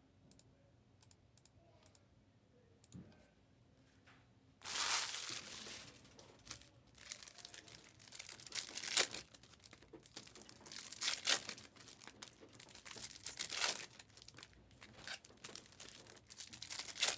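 Trading-card pack wrappers being torn open and crinkled. There are a few faint clicks at first, then a sudden loud tear about five seconds in, followed by repeated bouts of crinkling and tearing.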